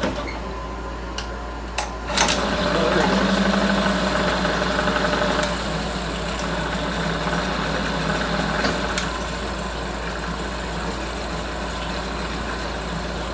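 9.9 hp Mercury outboard motor catching and starting about two seconds in, after failing to fire, then running at a raised speed for a few seconds before settling to a steady idle.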